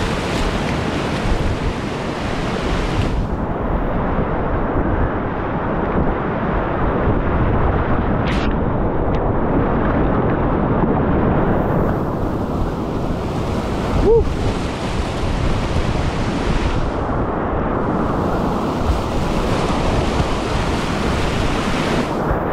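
Whitewater rapids rushing steadily around a kayak, a dense roar of water that turns duller for stretches. About two-thirds of the way through there is one brief sharp sound, the loudest moment.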